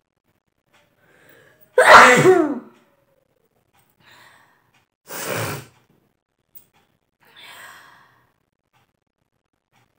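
A woman sneezes once, loudly, about two seconds in: a sharp voiced sneeze that falls in pitch, brought on by tickling her nose with a stalk of long grass. A shorter, noisier burst of breath follows about three seconds later, and a fainter breathy one comes near the end.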